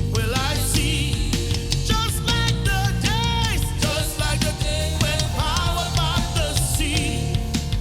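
Live church worship music: a band with heavy bass and a steady drum beat, with a wavering melody line sung or played over it.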